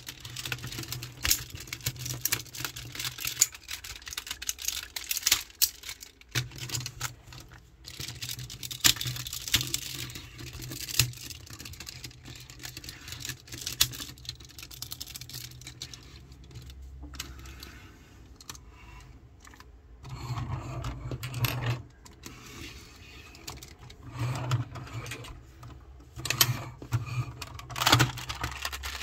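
Plastic clicking and clacking of a Tobot transforming robot toy being folded by hand from robot into car: joints snapping into place and parts knocking together in quick irregular runs. The clicks thin out about halfway through and pick up again in louder clusters near the end.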